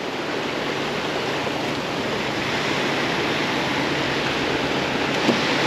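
Ocean surf breaking and washing onto the beach, a steady rush of waves.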